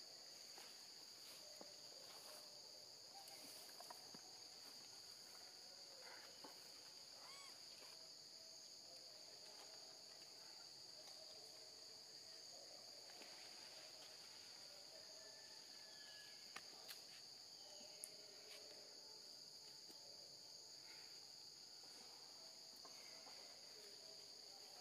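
Faint, steady high-pitched drone of insects in the undergrowth, with a few short faint chirps and scattered soft clicks over it.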